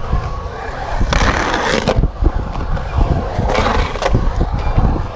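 Skateboard wheels rolling and carving around a concrete bowl, with a steady low rumble and two longer rough scraping surges, about a second in and again around three and a half seconds in.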